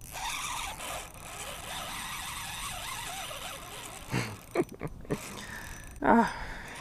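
Spinning reel being worked against a hooked carp pulling on the bent rod: the reel winding and its drag giving line, with louder bursts about four and six seconds in.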